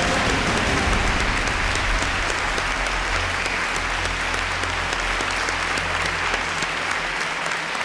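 Studio audience applauding steadily, with a low rumble underneath that stops about seven seconds in.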